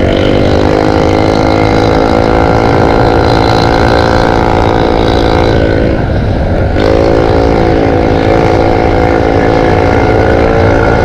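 Yamaha scooter's single-cylinder engine running steadily as it rides, its pitch rising slightly at first. About six seconds in, the engine note briefly drops out for under a second, then returns and holds steady.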